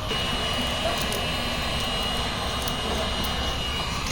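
High-pitched whine of a spinning power tool, such as a grinder, running steadily at speed over a low workshop rumble, then winding down in pitch at the very end.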